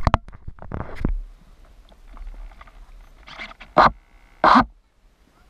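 Handling noise on the boat's hull-mounted camera as the RC boat is lifted out by hand: a cluster of knocks and thumps in the first second, scattered light taps, then two short rushing bursts near the end.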